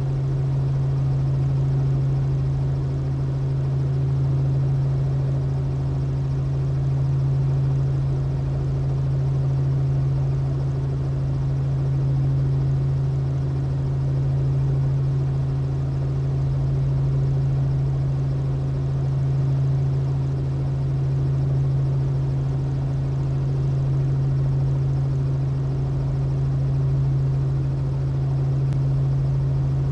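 Robinson R44 helicopter's piston engine and rotors running steadily on the ground at operating speed while it holds for takeoff: a constant deep hum with a slow, even swell in loudness.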